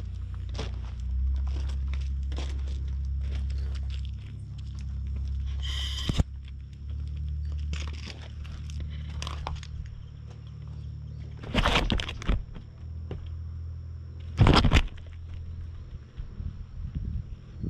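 Wind rumbling on an action camera's microphone, with scattered small clicks and crunches, and two loud bumps of handling noise about two-thirds of the way through.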